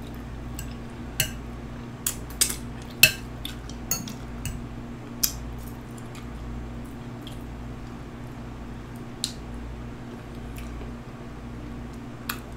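Cutlery clinking and scraping against a plate of food: a run of sharp clinks in the first five seconds, then two more later, over a steady low hum.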